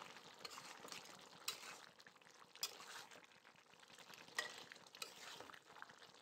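Steel spatula stirring a thick meat curry in a pan over the heat, with a faint steady sizzle. The metal scrapes and clicks sharply against the pan four or five times.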